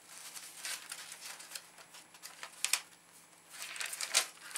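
Pages of a spiral-bound paper notebook being leafed through by hand: soft paper rustling with a few short, sharp flicks as pages turn over, the loudest a little before and a little after the three-second mark.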